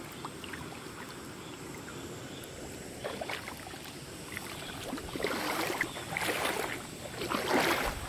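Wading through a shallow stream in rubber boots: water sloshing and swirling around the legs, with a few louder splashing steps in the second half.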